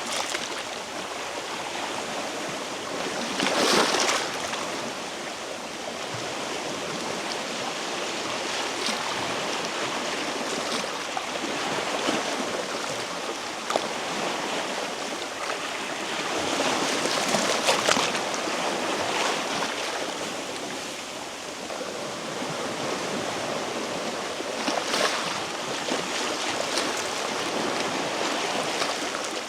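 Sea waves washing against shoreline rocks: a steady rushing wash with louder surges about four seconds in, around seventeen seconds and again near twenty-five seconds.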